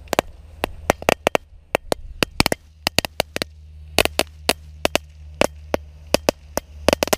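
A small crackling firework fixed to a boomerang, burning and giving off sharp, uneven cracks several times a second.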